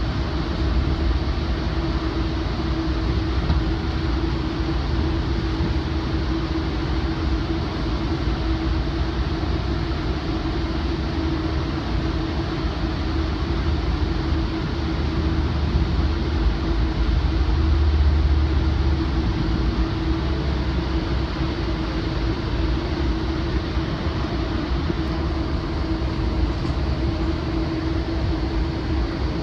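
A Metrolink Rotem cab car rolling along the track, heard from inside the passenger compartment while a GE AC4400CW diesel locomotive coupled ahead pulls it: a steady rumble with a steady hum. It grows briefly louder a little past halfway.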